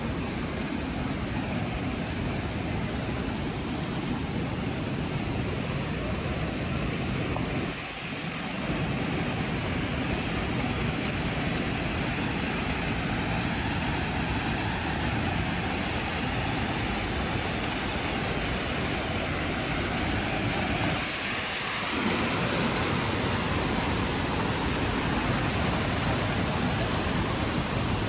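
Steady rushing of water tumbling over a rocky cascade and small waterfall in a stream, with two brief dips in the low end.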